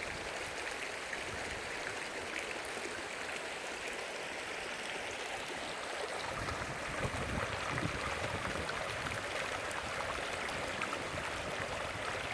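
Rain-swollen creek running after overnight rain: a steady rush of flowing water, with a deeper rumble joining about halfway through.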